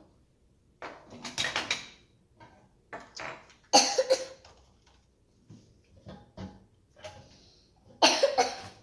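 Plastic marble run track pieces clicking and clattering as they are handled and fitted together, with three louder short noisy bursts.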